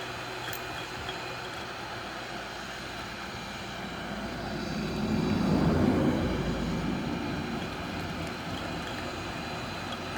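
Hot-air heat gun blowing steadily to soften the screen adhesive, swelling louder for a few seconds in the middle.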